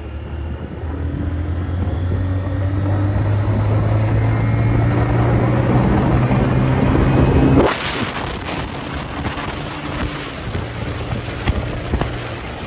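Bajaj Pulsar 150's single-cylinder engine pulling steadily as the motorcycle accelerates, its note climbing slowly. About seven and a half seconds in the engine note drops off suddenly, and the rush of wind noise at road speed takes over.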